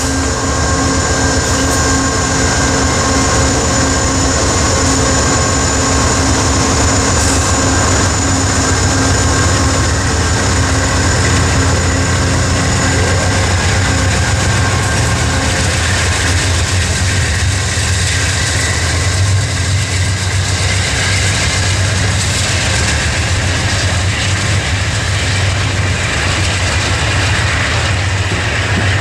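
Two Amtrak GE P42DC Genesis diesel locomotives running as they roll slowly past, followed by double-deck Superliner passenger cars, with wheels rolling on the rails. The engine hum is steady throughout, with a few higher steady tones that fade out after about eight seconds.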